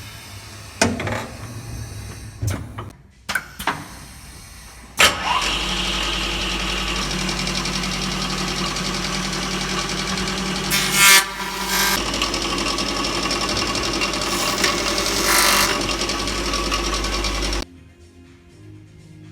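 Aluma RONDO 4000 corner cleaning machine working through a cycle. First come several sharp clicks and knocks, then about five seconds in its motors start and run steadily with a low hum. Two short bursts of harsher cutting noise follow, before it shuts off suddenly near the end.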